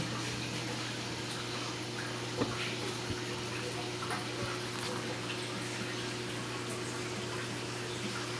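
Water circulating in a saltwater reef aquarium: a steady trickling, running-water sound over a low, even hum, with a single sharper click about two and a half seconds in.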